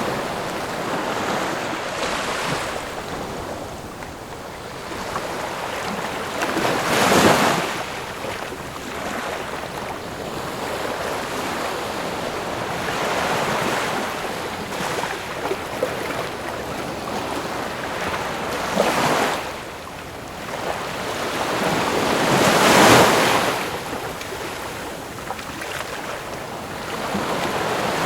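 Ocean waves washing onto the shore in a steady wash, with three louder breaking surges, the loudest a little over two-thirds of the way through.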